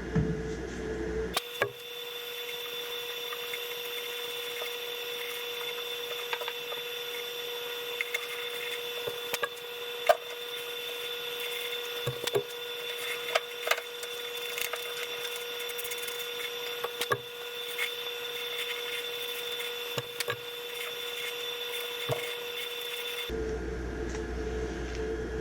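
Scattered sharp clicks and knocks of hand work on furnace parts, over a steady high-pitched hum.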